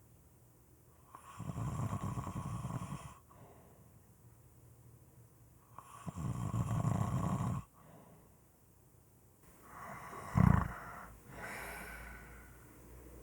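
Snoring: two long snores about four and a half seconds apart, each lasting about two seconds, then a short, much louder snore about ten seconds in, followed by a softer one.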